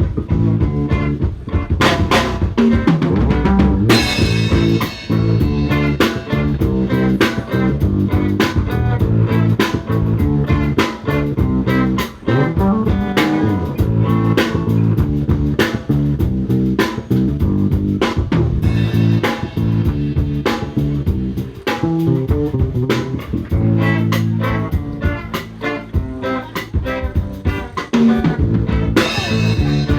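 Drum kit played with music that carries guitar and bass: frequent sharp snare, rimshot and bass-drum hits over steady pitched guitar notes.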